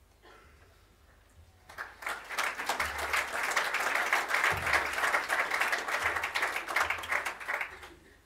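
Audience applauding, starting about two seconds in, quickly reaching full strength and dying away near the end.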